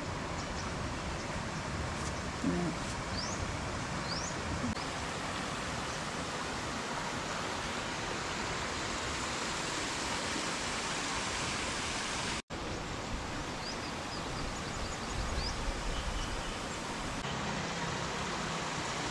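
Steady rushing of spring water flowing into a rock-edged pool, with a few short, high chirps over it. It cuts out for an instant about two-thirds of the way through.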